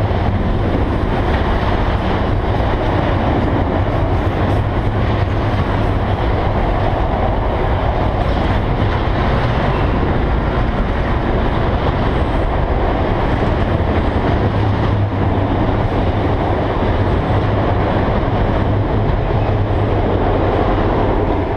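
A freight train of autorack cars rolling past on the track, a steady loud rumble and rattle of wheels on rail with a continuous low hum.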